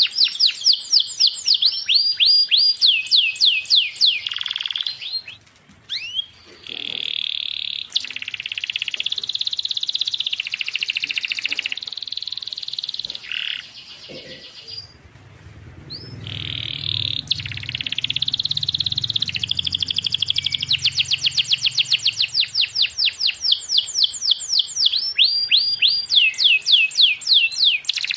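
Canary singing a long song: fast trills of repeated sweeping notes, about seven a second, alternating with held buzzing rolls, with brief pauses between phrases.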